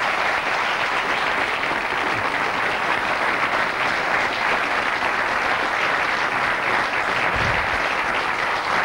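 Studio audience applauding, a dense, steady patter of many hands clapping.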